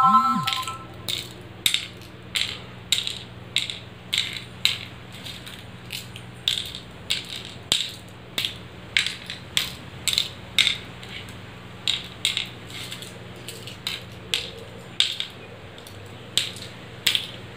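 Small shell counters dropped one at a time into the hollowed pits of a wooden pallankuzhi (mancala) board, a sharp click as each one lands, about one and a half a second in an even rhythm with a short break near the end. A faint steady hum lies underneath.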